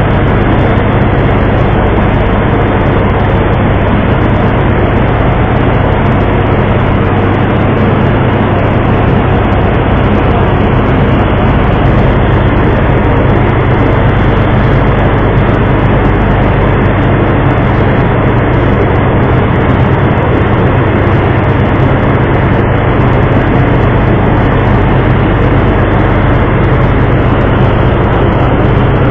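The boat's engine runs steadily with a loud, constant low hum, under an even rushing noise.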